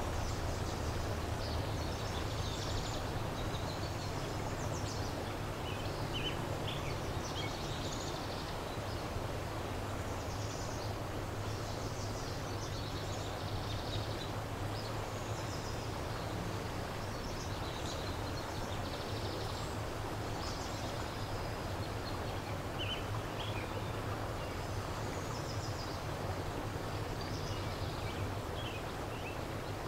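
Steady rushing of a river, with a low steady rumble underneath and songbirds chirping and singing on and off.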